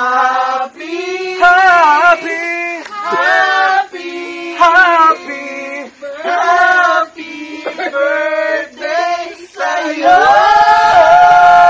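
A small group of men and women singing a birthday song together, unaccompanied, in short phrases that end in a long, louder held note near the end.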